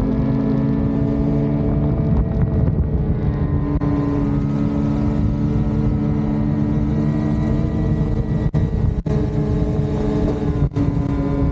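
Lynx Shredder RE 850 Turbo snowmobile's turbocharged two-stroke engine running at a steady trail pace through a Jaws trail muffler, its pitch shifting a little early on and then holding even. Near the end the sound cuts out briefly three times.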